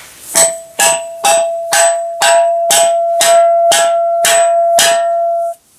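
About ten sharp hammer strikes, evenly spaced at roughly two a second, with a steady metallic ring that carries on between blows. The ringing cuts off abruptly near the end.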